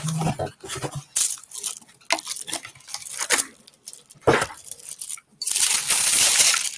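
Packaging rustling and crinkling in short bursts as a spray bottle is worked out of its dark wrapping, then a long loud tearing rip of the wrap from a little past five seconds in.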